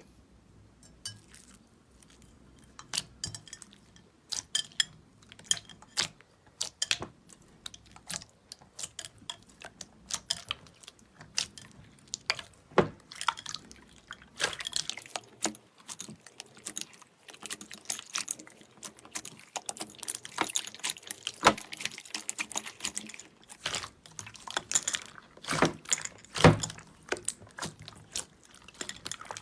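Slime being squeezed and pulled by hand, giving irregular wet, sticky clicks and pops. They start sparse and grow dense in the middle, with a few louder pops near the end.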